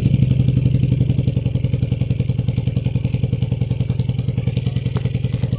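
Honda CB450DX parallel-twin engine idling with an even, regular beat, settling down just after a rev.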